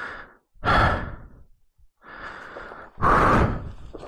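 A man breathing heavily close to the microphone while recovering from a motorcycle crash: slow breaths, a quieter inhale followed by a louder exhale, twice over.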